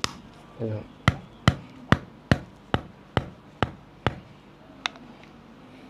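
Percussive strikes on a person's body during chiropractic bodywork: about ten sharp, evenly spaced taps, roughly two to three a second, the last coming after a short gap about five seconds in.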